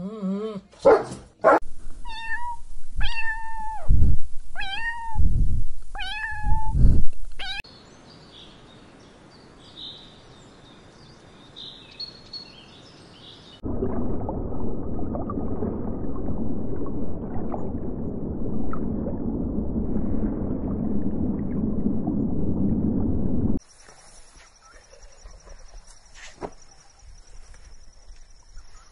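A small animal's high, pitch-falling cries, about six of them in the first seven seconds, in the manner of meows. Later comes about ten seconds of steady low underwater rumble and hiss, then near quiet with a faint steady high-pitched whine.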